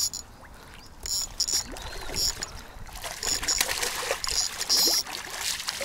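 Water splashing in a series of short splashes, roughly one a second, from about a second in until near the end.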